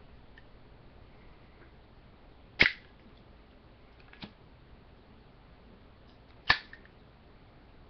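Zippo lighter's hinged metal lid snapping, two sharp metallic clicks about four seconds apart with a fainter click between them.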